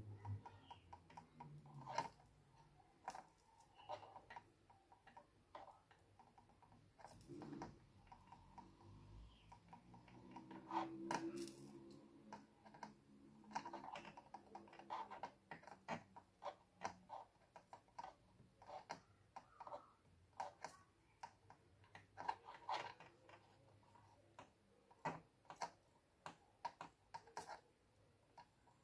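Faint, irregular small clicks and taps of hand tools working on a computer motherboard while its capacitors are being desoldered and pulled.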